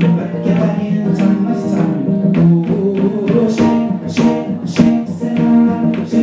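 A man singing into a microphone while strumming chords on an acoustic guitar in a steady rhythm.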